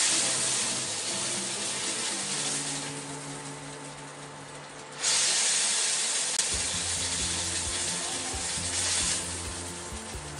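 Pork steaks sizzling in hot pork fat in a wok. The sizzle flares up loudly at the start and again about five seconds in, easing off after each surge.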